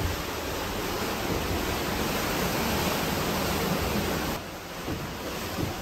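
Steady rushing noise of wind and sea while under sail: an even hiss with no distinct events, dropping a little in level about four seconds in.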